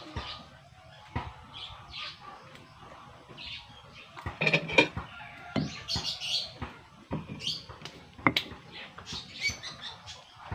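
Small birds chirping on and off, with a few sharp clinks of a spoon against a dish in the second half.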